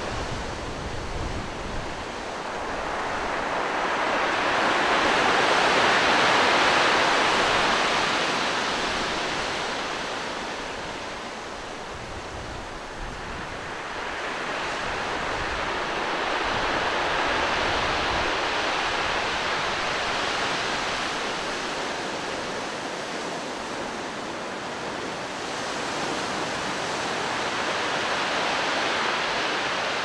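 Sea surf washing onto a rocky shore, a steady rush of water that swells and falls away in three long surges about ten seconds apart.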